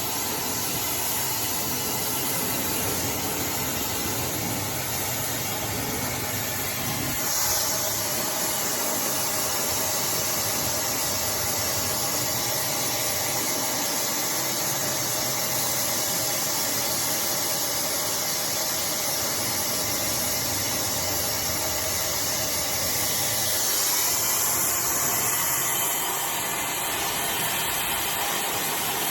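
Hair dryer (iDryer AI Pro Style) blowing steadily, a continuous rush of air. Its tone shifts about a quarter of the way in and again briefly near the end.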